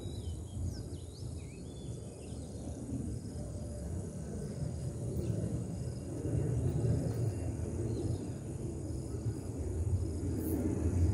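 Outdoor riverside ambience: a steady low rumble of background noise, with a few short bird chirps in the first second and a half, the rumble growing louder near the end.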